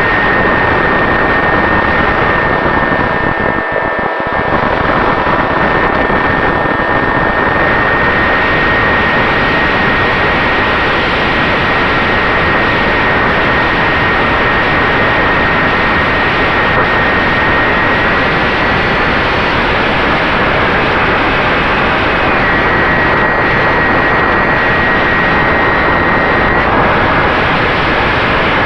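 Turnigy 3542 brushless motor and 8x4 propeller of an FX-61 Phantom flying wing running at cruise, a steady high whine over heavy wind rush on the onboard microphone. The sound dips briefly about four seconds in.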